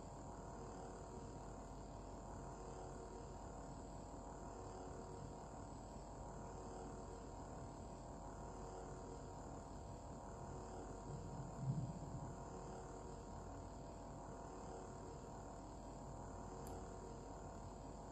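Lightsaber sound board playing a steady electronic idle hum through its built-in speaker while the blade is lit, with a brief low thump about eleven and a half seconds in.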